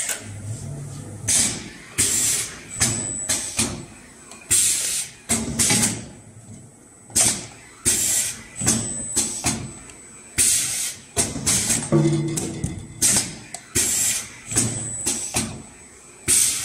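Automatic rotary-table spin welding machine cycling, with repeated short bursts of air hiss and clatter from its pneumatic cylinders, roughly one or two a second. An intermittent thin high whine comes and goes between them.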